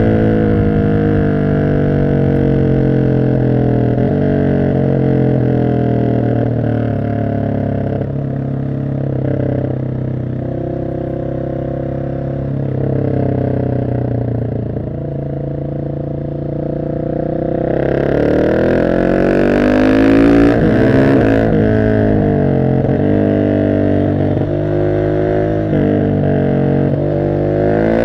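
Husqvarna 701 SM single-cylinder engine through a decatted Arrow exhaust, heard on board while riding. It runs at a fairly steady cruise, then about eighteen seconds in it accelerates hard, the revs climbing and dropping through several gear changes with more wind rush.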